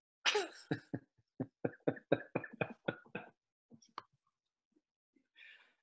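A person laughing over a video call: a short burst, then a quick run of about a dozen 'ha' pulses, about six a second, that fades out.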